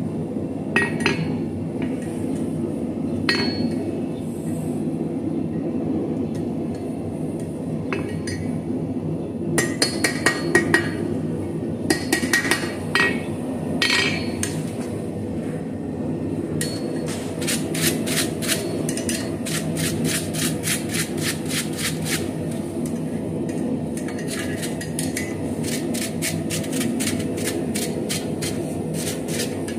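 Small ball-peen hammer striking a hot steel ring on a steel anvil face: a few single ringing blows, then quick runs of blows about ten seconds in. From the middle on comes a long series of rapid light metallic taps, all over a steady background hum.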